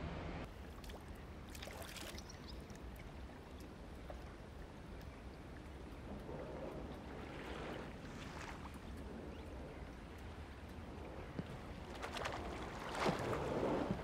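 Water swishing and splashing as a single rowing scull is rowed past, with oar blades dipping. The sound swells twice, about halfway through and again near the end, with a few light knocks.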